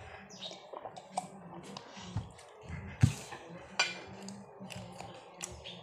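Scattered light clinks and knocks of tableware and cups during a meal, the loudest knock about three seconds in, over a low steady hum.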